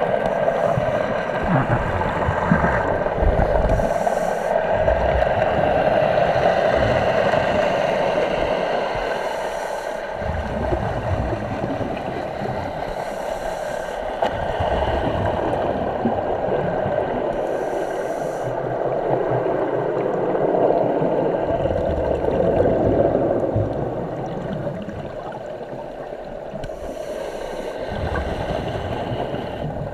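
Underwater ambience from a scuba dive: a steady rush of water with low rumbles, and short hissing bursts of exhaled regulator bubbles several times, about every four to five seconds.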